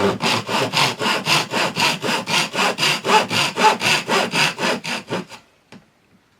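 Fine-toothed hand saw cutting into plywood for a half-lap joint, in quick, even strokes about four to five a second. The sawing stops about five seconds in.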